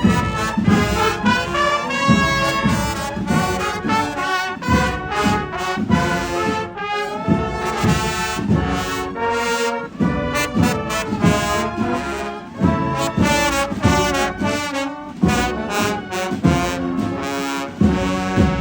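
Procession band music: brass with trombones and trumpets playing a march over a steady drum beat of about two strokes a second.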